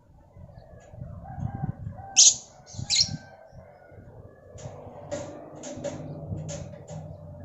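A bird calling: two loud, shrill calls about two and three seconds in, then a quick run of shorter chirps, over a low rumbling noise.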